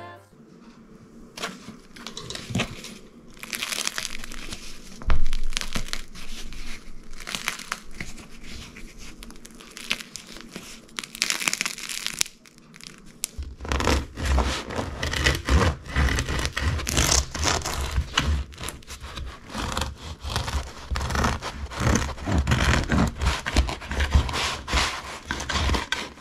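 Crisp crackling and rustling from the crust of a homemade sourdough loaf, with one sharp knock about five seconds in. From about halfway a serrated bread knife saws through the crust on a wooden cutting board: rapid scratchy crunching with dull thuds on the board.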